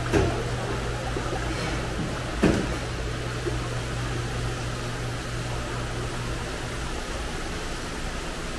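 Water running and splashing in live seafood tanks, over a steady low hum that fades out about two-thirds of the way through. Two short thumps about two seconds apart near the start stand out as the loudest sounds.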